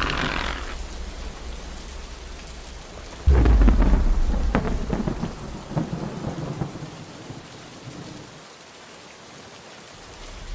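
Thunderstorm: steady rain with a sudden loud clap of thunder about three seconds in that rumbles on and fades away over the next several seconds.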